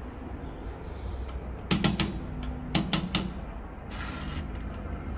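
Battery charger clamps being clipped onto the car battery's terminals: two quick runs of sharp metallic clicks about a second apart, followed by a brief hiss.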